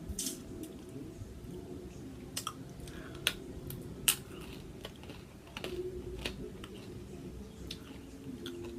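Scattered small clicks and crunches of a hard candy cane being sucked and bitten in the mouth, over a faint steady low hum.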